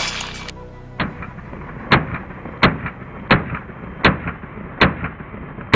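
Semi-automatic pistol fired at a steady pace, about seven shots roughly three-quarters of a second apart. The shots sound dull, with the sharp top cut off.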